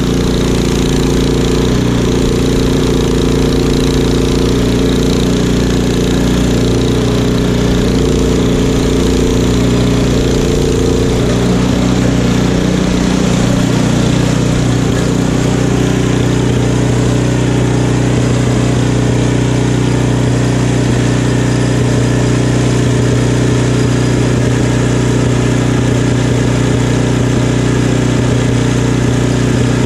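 Craftsman two-stage snowblower's gas engine running steadily up close, its note changing about eleven seconds in.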